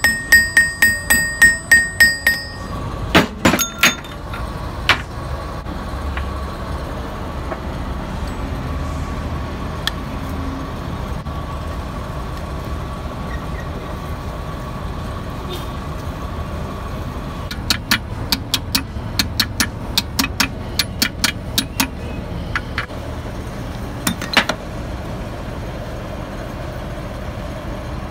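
Steel hammer striking a bearing sleeve on a gearbox gear shaft to seat it: about eight quick blows, each with a high metallic ring, followed by a few more knocks. Later comes a run of lighter metallic clicks and clinks as the gear parts are fitted together, over a steady workshop hum.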